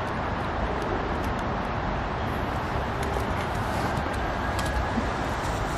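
Steady outdoor background noise, a low rumble and hiss like distant traffic, with no distinct event standing out.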